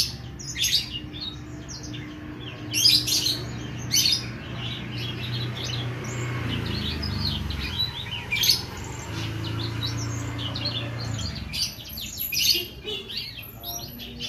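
Oriental magpie-robin (kacer) in full song: a fast, varied run of sharp chirps and whistles with several loud bursts.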